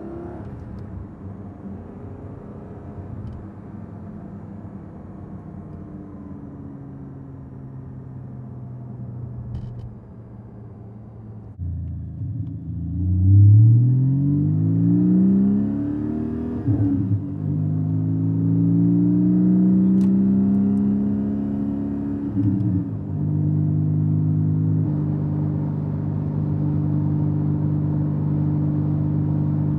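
Porsche 718 Cayman GT4's 4.0-litre flat-six heard from inside the cabin while driving. It cruises steadily at first. About twelve seconds in, it accelerates through the gears, the pitch climbing and dropping back at each upshift, then it settles into steady cruising again.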